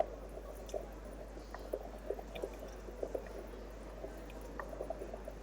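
Underwater coral reef recording: many short, irregular low pops and knocks from fish, with scattered fainter clicks over a steady low hum.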